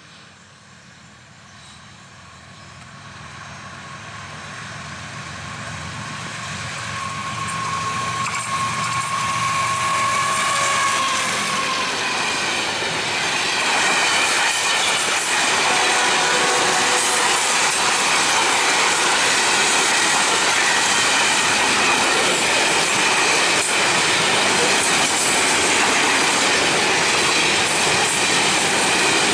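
Container freight train approaching and passing close by: its rumble grows steadily louder over the first dozen seconds, with a steady high tone for a few seconds around ten seconds in. The loaded flat wagons then roll past at speed in a steady din of wheels on rail with a high ringing over it.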